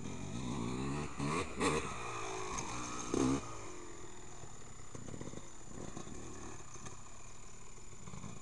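Motocross dirt bike engine revving hard as it rides past close by, climbing and falling in pitch in two loud bursts about one and a half and three seconds in, then running on more quietly as it rides away.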